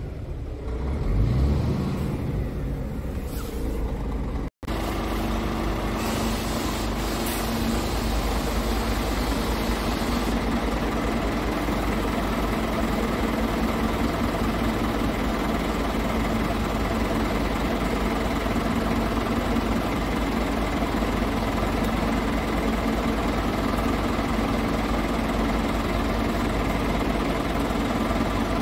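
Scania R tractor unit's diesel engine, given a brief rev in the first couple of seconds, then idling steadily after a momentary break in the sound.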